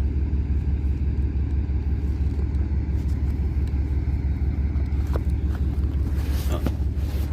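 Steady low rumble, with a couple of faint clicks and a brief rustle about six seconds in.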